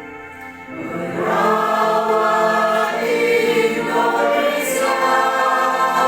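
A choir comes in singing about a second in, taking over from a keyboard introduction, and goes on singing loudly in full harmony.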